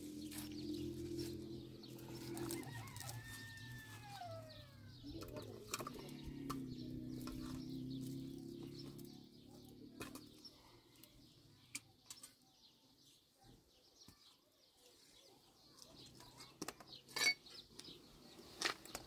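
Chickens clucking, with a call that falls in pitch about four seconds in, over a steady low hum that fades about halfway through. Later come scattered sharp clicks and taps.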